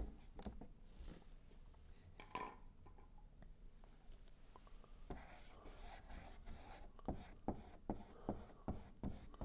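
Faint scratchy strokes of a paintbrush on canvas as paint is blended, with light taps; the strokes come quicker and denser in the second half.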